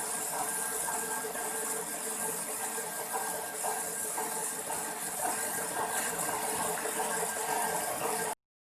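Electric stand mixer running at a steady speed, kneading brioche dough: an even motor whine with a high hiss, unchanging throughout.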